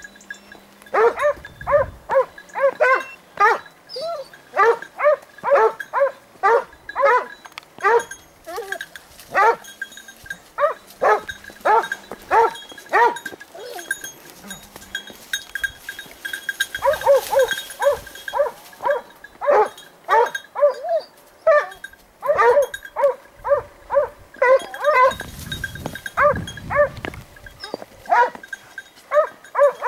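Boar-hunting dogs barking at bay in quick, repeated barks, two to three a second, easing off briefly about halfway through and then picking up again. The hunters take this baying for a wild boar that may be held at bay in the scrub.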